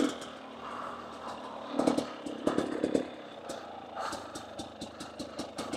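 KTM EXC 250 enduro motorcycle engine running at low revs on a rough downhill section, with two short throttle blips about two and three seconds in. Sharp clicks and clatter run through it.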